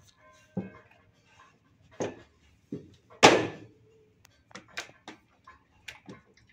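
A raised dog cot knocked and clattering as a dog noses under it and lifts it: a few separate knocks, the loudest about three seconds in with a brief ring after it, then lighter clicks.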